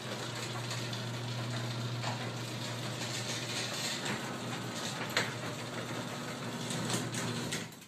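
Craftsman half-horsepower belt-drive garage door opener running with a steady motor hum, a sharp click about five seconds in, then stopping abruptly near the end. Its drive belt is loose.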